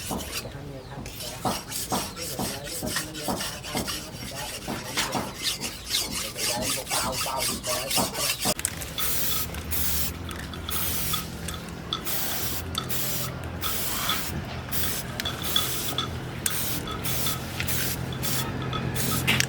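Repeated rasping strokes of a file worked by hand on a steel blade forged from rebar. About nine seconds in, a steady machine hum with fast ticking takes over.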